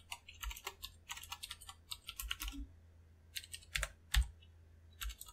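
Computer keyboard typing: quick runs of keystrokes, a short gap near the middle, then a few separate, louder keystrokes.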